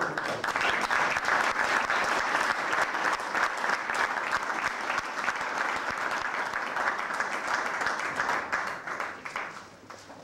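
Audience applauding: many hands clapping, starting suddenly and dying away near the end.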